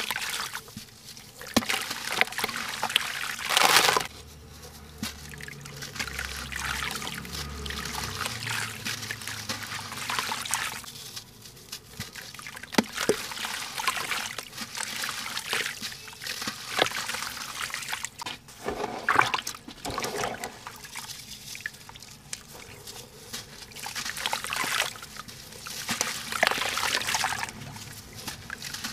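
Lumps of sand-cement crumbling in the hands, the grit and crumbs pouring into a tub of water in repeated waves with small crackles, the loudest about four seconds in. Between pours, wet lumps are squeezed and sloshed under the water.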